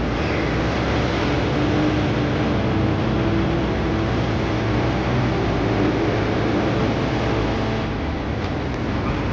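Steady city street traffic noise: vehicles running on the road, with a low engine hum under it.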